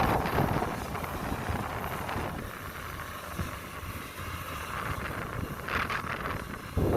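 Combine harvester's engine running at a distance as a steady rumble, with wind on the microphone that gets louder just before the end.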